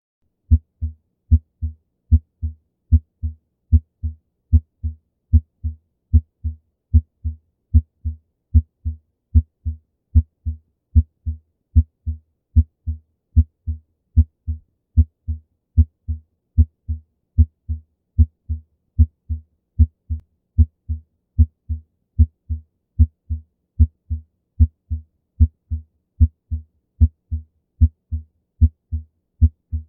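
Normal heart sounds as heard on auscultation: a steady, regular lub-dub, each beat a pair of dull low thumps (S1 then S2), a little over one beat a second, with clear silence between beats and no murmur.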